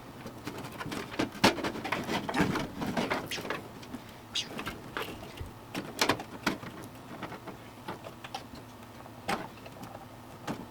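Irregular clicks, knocks and rustling of hands handling cables and parts inside a desktop computer case, several sharp clicks standing out, with a lull in the second half.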